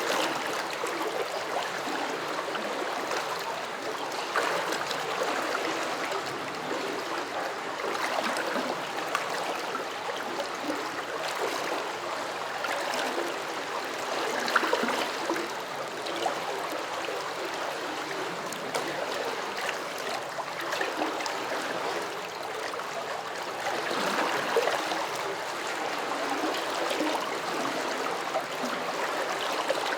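A small stream flowing and gurgling: a steady rush of rippling water with irregular little bubbling splashes and a few brief swells.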